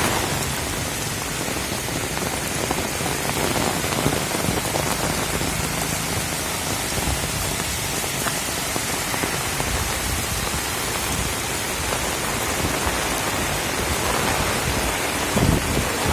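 Heavy rain falling steadily, a dense even hiss of drops on surfaces. Wind starts buffeting the microphone again near the end.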